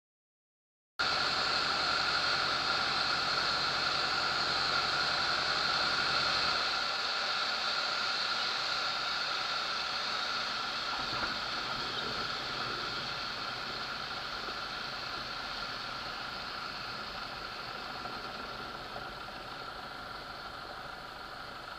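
Zenair CH-300 light airplane's engine, propeller and airflow heard from inside the cockpit as a steady noise, cutting in abruptly about a second in. About six and a half seconds in the low rumble drops away, and the sound then fades slowly as the plane lands and rolls out on the runway.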